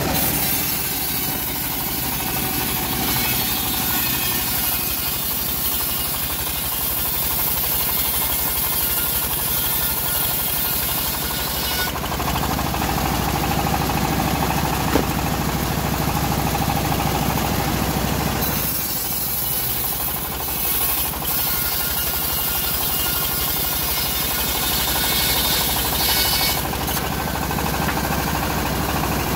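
Homemade vertical bandsaw mill running steadily while slabs of teak are fed through the blade. The machine noise changes character about 12 seconds in and again near 19 seconds, and there is one sharp click in the middle.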